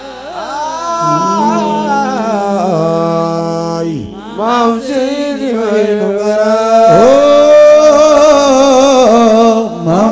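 A man chanting a Wolof religious praise song into a microphone, holding long ornamented notes that slide between pitches, over a steady low drone. He breaks off about four seconds in and starts a new phrase about seven seconds in.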